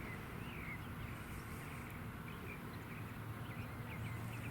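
Birds chirping faintly in short scattered calls over a steady low outdoor hum.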